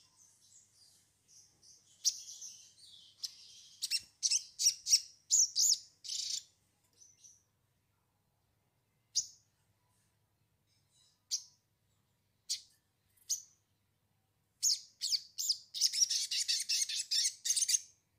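Sogon bird song: high-pitched chirps and short call phrases, then a fast, dense trilled rattle near the end. It is a lure call (pancingan) played to set a newly caught sogon singing.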